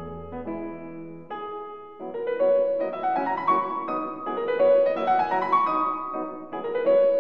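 Piano music: a few held notes, then from about two seconds in, rising runs of notes repeating in waves.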